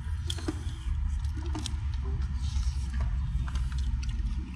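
King crab shells and legs being handled and picked apart by hand, giving a few short sharp clicks over a steady low rumble.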